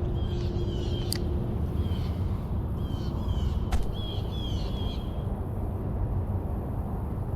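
A bird calling in short, high, downward-slurred notes, several in quick succession over the first five seconds, against a steady low rumble, with two sharp clicks in between.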